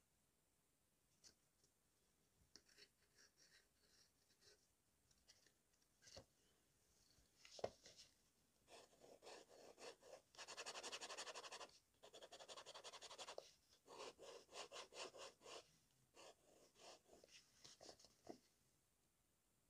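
TWSBI fountain pen nib scratching across a paper card in fast back-and-forth scribbles, laying down an ink swatch. It is faint, with a sharp tap about seven and a half seconds in just before the scribbling starts.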